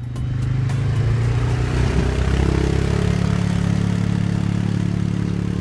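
ATV engine running steadily at trail speed, with a brief shift in pitch about two seconds in.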